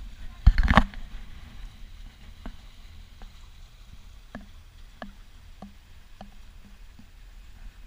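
Low steady rumble aboard a Lagoon 400 sailing catamaran under way, with one loud thump about half a second in and scattered light ticks and knocks after it.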